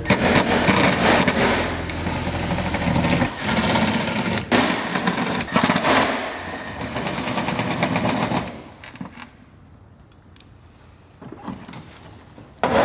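Cordless impact driver hammering, backing out 10 mm bolts from a car's hatch trim. It runs in several long, rapid rattling bursts and stops about eight seconds in.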